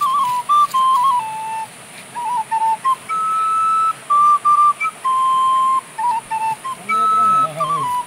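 Plastic soprano recorder playing a simple melody, one clear note at a time in short phrases with brief gaps between them. A voice starts talking under the tune near the end.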